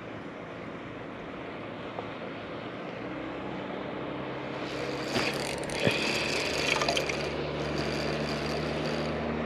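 Water lapping around the kayak. About three seconds in, the MotorGuide Xi3 electric trolling motor starts up and hums steadily. Around five to seven seconds in, a few sharp clicks and rattles come from the reel and lure being handled.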